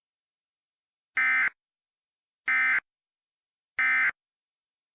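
Emergency Alert System end-of-message (EOM) signal: three identical short bursts of SAME digital data tones, each about a third of a second, a little over a second apart. It marks the end of the tornado warning broadcast.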